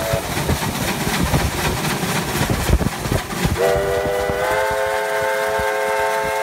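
NSWGR 30 class steam locomotive passing close by with its exhaust beat and wheel and rail noise. Then its steam whistle sounds a long chord of several notes, starting about three and a half seconds in and stepping up to a higher, fuller chord about a second later.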